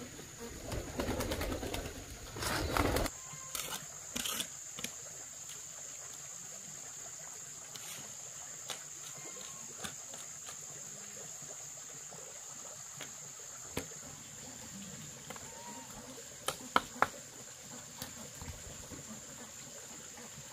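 A dove cooing faintly over a steady, high-pitched insect drone. A burst of rough noise covers the first three seconds, and a few sharp clicks come about three-quarters of the way in.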